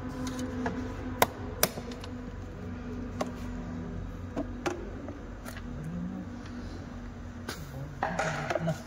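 Sharp plastic clicks and knocks, about half a dozen spread apart, as the air filter housing and its fittings on a Maruti Suzuki Alto 800 engine are unfastened by hand, over a steady low hum.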